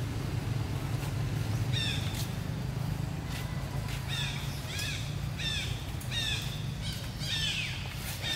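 Baby monkey crying: a run of short, high cries, each rising and falling in pitch, about one every two-thirds of a second, starting about two seconds in, over a steady low rumble.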